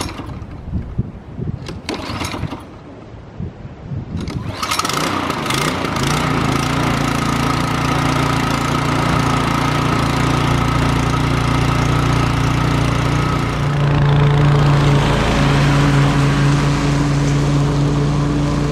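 Briggs & Stratton engine of a Toro TimeMaster walk-behind lawn mower being pull-started: a few rasping yanks of the recoil cord, then the engine catches about four and a half seconds in and runs steadily. Its note steps up slightly about fourteen seconds in.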